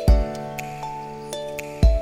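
Background music: a gentle instrumental track with a steady kick-drum beat, held chords and light bell-like percussion.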